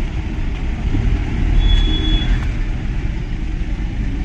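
Vehicle engines running close by, a loud, steady low rumble, with a brief high tone about two seconds in.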